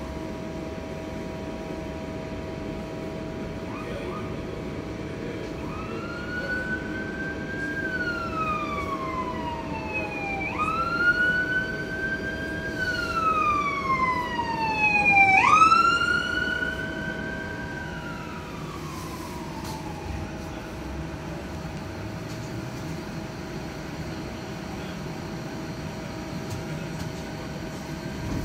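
Emergency vehicle siren wailing as it passes: about three cycles, each rising quickly and then sliding slowly down. It is loudest near the middle and fades out about two-thirds of the way in. Under it runs the steady rumble and hum of the moving streetcar.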